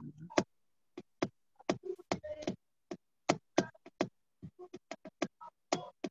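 Rapid, irregular clicking and tapping on a computer's mouse and keyboard, a couple of dozen sharp clicks in about six seconds with silence between them, while a presentation is being closed and reopened.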